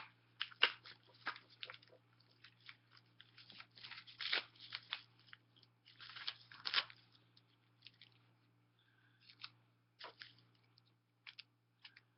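Crinkling and crackling of a mail package's packaging being handled and opened, in short irregular bursts with a few clicks, busiest in the first half and sparser later.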